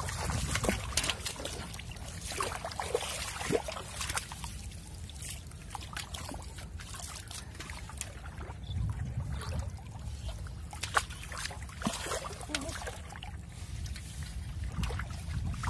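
Shallow water splashing and trickling as it is scooped into a metal pot, in many short irregular splashes over a steady low rumble. Near the end, a caught fish moves and splashes in the water-filled pot.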